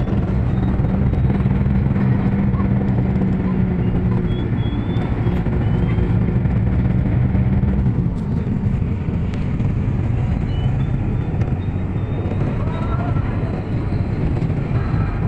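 Bus engine and road noise heard from inside the moving passenger cabin, a steady low hum over a rushing din. The engine hum eases about eight seconds in and picks up again near the end.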